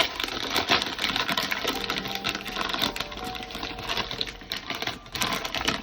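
Plastic snack bag of gourmet popcorn being opened and handled: dense, rapid crinkling and crackling.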